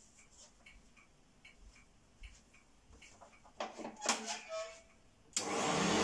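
1975 Hoover Starlight U2002 upright vacuum cleaner switched on near the end: after a few faint knocks, its motor starts suddenly and runs with a steady hum and whoosh, still rising a little as it comes up to speed.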